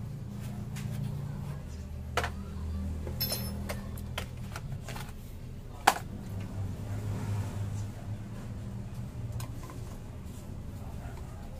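Scattered clicks and clinks of a metal wrench and socket on bolts and engine parts as the fan cover and cooling fan of a GY6 scooter engine are unbolted. One clink about three seconds in rings briefly, and the loudest click comes about six seconds in, over a steady low hum.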